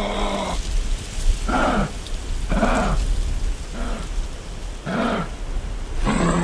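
Kangaroo calls: a held, even-pitched call that stops about half a second in, then four short calls about a second apart, each dipping and rising in pitch, and another held call starting near the end. A steady low rumble runs underneath.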